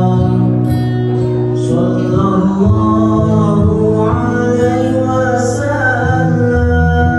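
Selawat, devotional Arabic chant in praise of the Prophet, sung in long held, slowly bending melodic lines over sustained low accompanying tones.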